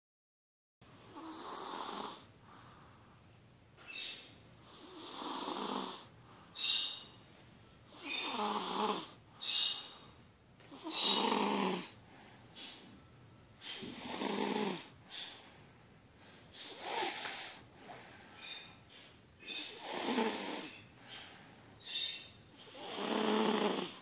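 A young child snoring heavily, like a grown-up: a rasping snore on each breath, about every three seconds, with softer breath sounds between.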